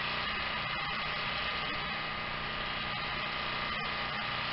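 Steady engine hum from a bowfishing boat running close by with its lights on.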